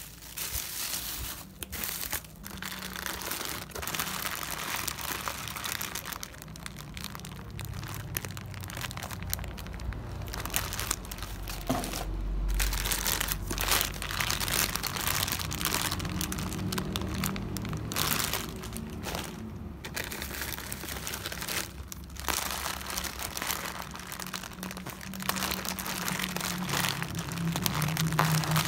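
Bubble wrap and clear plastic zip bags crinkling and rustling as they are handled and lifted out of a cardboard box, in uneven bursts with short pauses.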